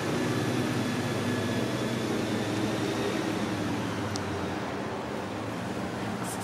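Steady low hum of a motor running, with faint even low tones in it, and one faint click about four seconds in.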